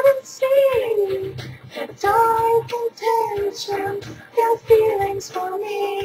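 A woman singing a slow song in held, wavering notes, with the recorded backing track playing low behind her voice.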